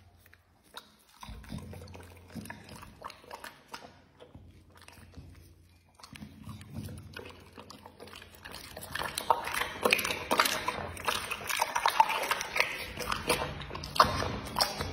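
Pit bull eating raw meat: wet chewing, smacking and lip-licking, a run of short clicks and slurps that grows louder and busier from about eight seconds in.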